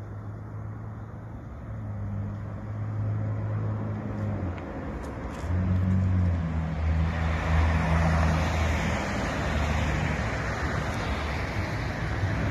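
Jet airliner on approach coming toward the listener: a low engine hum under rushing jet noise that grows clearly louder from about halfway through.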